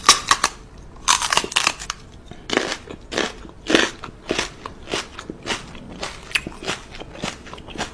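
Kissing smacks between a woman's pursed lips and a small dog's muzzle: a string of short, sharp smacking clicks, irregular, about one or two a second.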